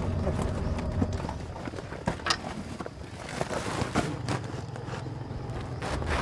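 A plastic sheet rustling and scattered clicks and knocks as it is pulled back off plastic jerrycans in the back of a car and the load is handled.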